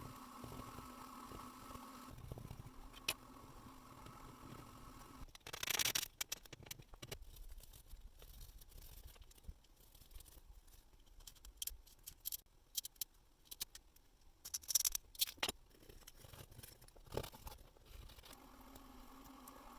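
A fiberglass brush and toothpick scratching rust and grime off a vintage watch case: short, irregular scrubbing strokes and light clicks, starting about five seconds in. A faint steady hum is heard before the scratching begins and again near the end.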